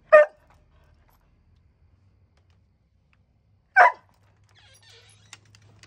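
A dog barking twice, single short barks about four seconds apart.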